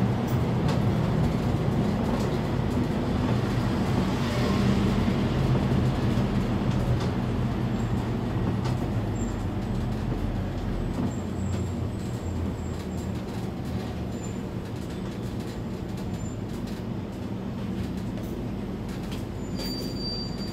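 Scania K320 articulated bus's diesel engine running, with drivetrain and road rumble, heard from the driver's cab. The engine sound eases off about halfway through as the bus slows behind traffic, and a short high beep sounds near the end.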